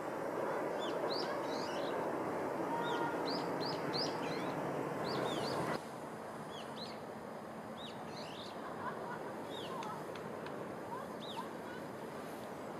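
Small birds chirping, many short high calls one after another, over a steady open-air background noise that drops suddenly about six seconds in and is quieter after.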